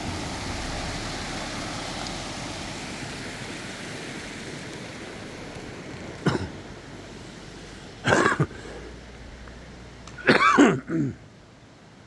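Small stream rushing over rocks, fading over the first half as it is left behind; then a man gives three short throat-clearing coughs, the last one doubled, which are the loudest sounds.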